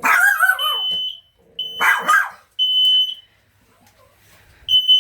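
Residential smoke detector sounding its alarm during a test: a steady high beep in the standard pattern of three half-second beeps, a pause, then three more. A dog barks over it twice near the start, the first bark drawn out and falling in pitch.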